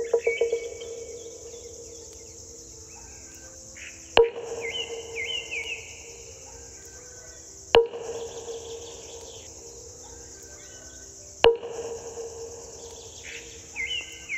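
A meditation bell or singing bowl is struck three times, about three and a half seconds apart. Each strike rings on as a steady tone, over continuous insect chirring, with bird chirps after the first strike and again near the end.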